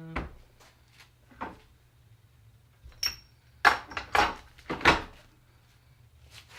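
Hand tools and metal engine parts clanking and knocking during an engine teardown. The knocks are scattered, with a cluster of louder clanks between about three and a half and five seconds in.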